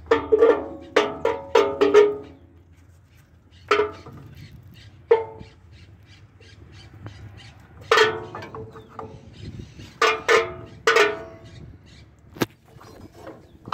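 Steel pry rod clanking against the drum brake shoes and springs of a semitrailer axle as the shoes are levered off. The metal clanks ring briefly: a quick run of them at the start, a couple of single ones, and another run about eight to eleven seconds in.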